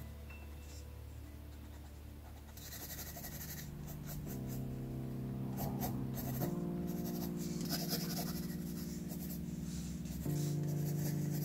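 Graphite pencil scratching across sketchbook paper in spells of quick shading strokes. Background music plays with held chords that grow louder about four seconds in.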